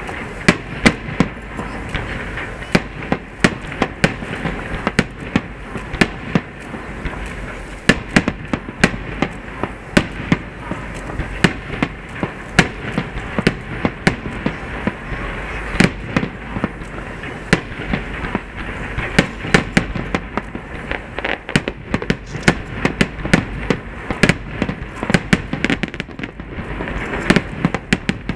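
Aerial firework shells bursting in a rapid, uneven barrage of sharp bangs, several a second, over a continuous crackling noise.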